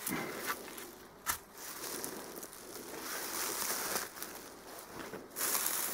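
Footsteps and rustling through low shrubs and loose stones while scrambling down a steep slope, with a sharp knock about a second and a half in.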